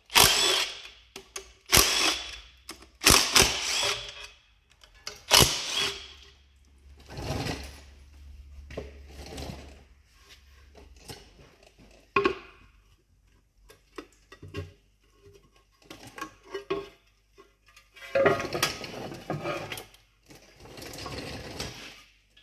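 Hand tools at work on bolts: a ratchet wrench clicking in repeated short bursts, with metal clinks between them. The loudest run comes in the first six seconds, and two longer stretches of ratcheting come near the end.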